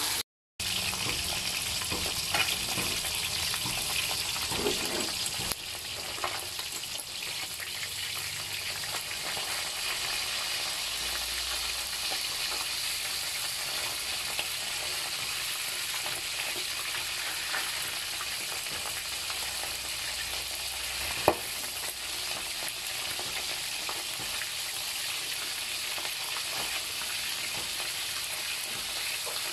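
Whole round scad (galunggong) sizzling steadily as they fry in hot oil in a metal wok. Metal tongs click against the pan now and then as the fish are turned, with one sharp click about three-quarters of the way through.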